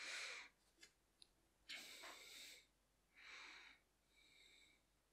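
Near silence with three faint breaths close to the microphone, the middle one the longest, and a couple of tiny clicks about a second in.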